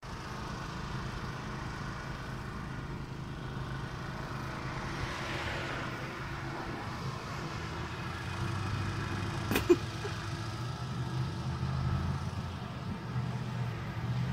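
Road traffic: a steady low hum of car engines, with a car passing about five seconds in. A single sharp click comes a little before the ten-second mark and is the loudest moment.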